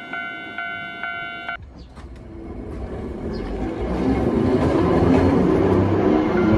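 A crossing alarm rings in quick, even strokes and cuts off about one and a half seconds in. Then the Hankai Tramway Mo161 tram, with nose-suspended traction motors, draws near, its running noise and motor hum growing louder from about two seconds in until it is close and loud.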